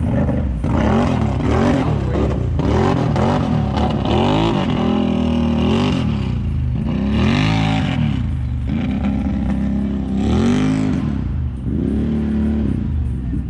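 Off-road vehicle engine revving hard in repeated surges, its pitch rising and falling about once a second. In the second half it holds longer pulls.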